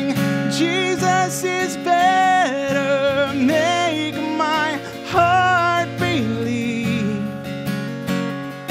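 A man singing a worship song over a strummed acoustic guitar, holding long wavering notes.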